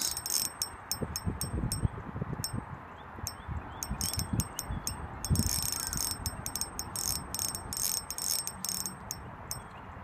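Spinning fishing reel clicking and whirring as line is wound in under load from a bird tangled on the line, with sharp irregular ticks and longer metallic whirs about five and eight seconds in. Low rumbling handling noise runs underneath.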